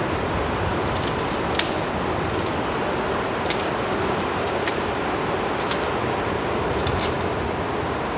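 Kitchen knife cutting through callaloo stems and leaves held in the hand, making short sharp snicks at irregular intervals, roughly once a second, over a steady hiss.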